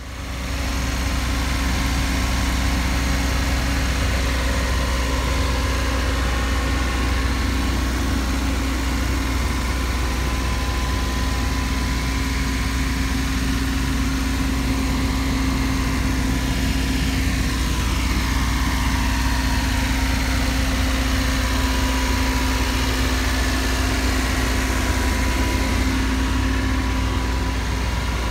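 Mitsubishi Minicab kei truck's engine idling steadily, a low even hum.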